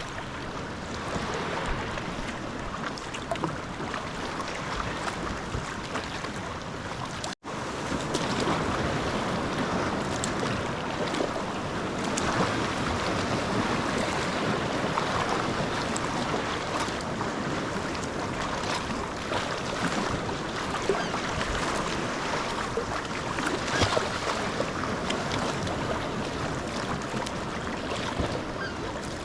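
Sea kayak on the move: paddle strokes splashing in the sea, with waves washing and wind on the microphone. The sound cuts out for an instant about a quarter of the way through.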